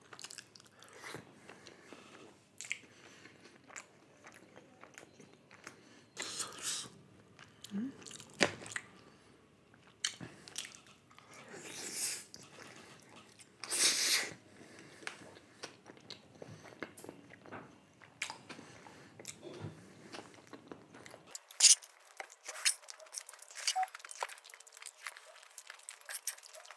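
A person biting and chewing food close to the microphone, in irregular short bursts with mouth clicks between quieter stretches.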